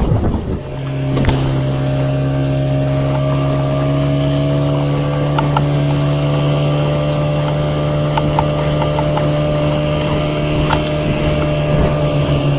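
Motorboat engine running steadily at one constant pitch, a level engine hum.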